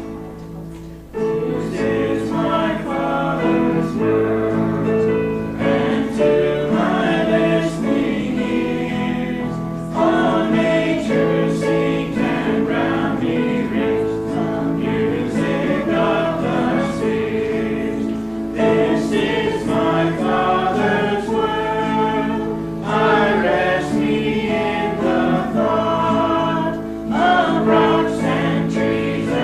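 Choir singing a gospel hymn with instrumental accompaniment, growing louder about a second in.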